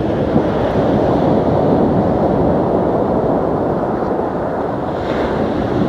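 Sea waves breaking and washing up the beach: a steady, loud rush of surf.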